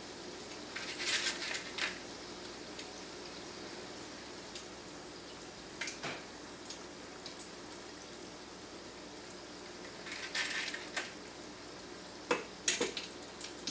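Hot oil sizzling and bubbling steadily around battered zucchini sticks deep-frying in a stainless steel pot, with louder bursts of sizzle about a second in and again about ten seconds in. A few sharp metallic clinks of a wire skimmer basket against the pot, near six seconds and near the end.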